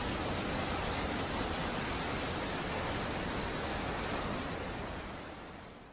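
A waterfall's falling water making a steady, dense rushing, heavy in the low end, that fades out over the last second or so.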